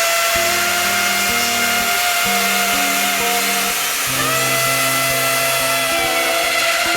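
Nitto WOJ-3200 magnetic drill motor running with a steady whine that steps up slightly in pitch about four seconds in, under background music.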